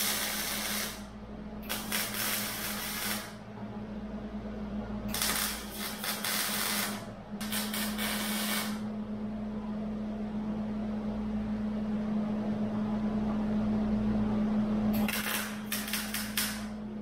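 Wire-feed (MIG) welder arc crackling in short bursts of one to two seconds, about five in all, as short beads are laid on a steel table frame. A steady low hum runs underneath.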